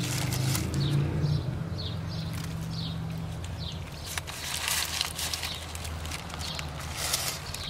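Steady low hum of a car's engine and cabin, heard from inside the car, with scattered light clicks and rustles. A row of short, high, falling chirps comes in the first few seconds.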